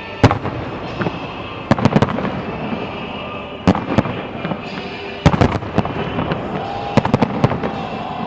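Fireworks display: sharp bangs of bursting shells, singly and in quick clusters roughly every second and a half, over a continuous rumble and crackle.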